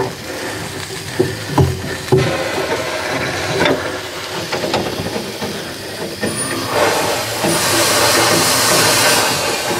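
One-foot gauge steam locomotive on a turntable: a few light knocks and clanks, then about seven seconds in a loud, steady steam hiss starts as steam blows from the cylinder drain cocks at the front of the engine.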